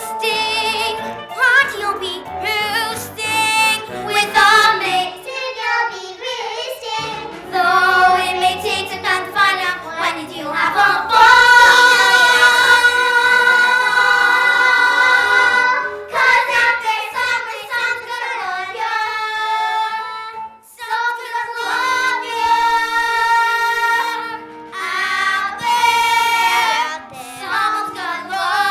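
Young voices singing a musical-theatre song over backing music, with a long held note about eleven seconds in.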